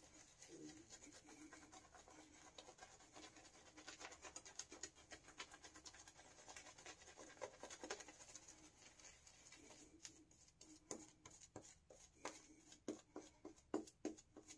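Faint scratching and crackle of a synthetic shaving brush working lather over the skin of the neck, a stream of quick soft strokes. The strokes thin out into a few louder ticks near the end.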